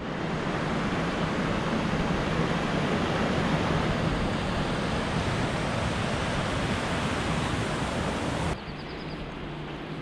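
Rushing water of a fast mountain stream tumbling over rocks, a dense steady rush; about eight and a half seconds in it drops abruptly to a quieter, more distant rush.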